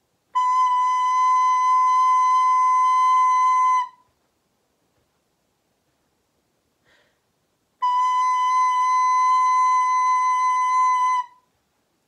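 Recorder playing a long, steady B held for four beats, twice, with a silent gap of about four beats between the two notes.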